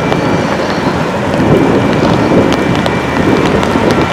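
Four KiwiRail DL-class diesel-electric locomotives rumbling heavily as the train approaches, with a faint steady high whine over the engine noise.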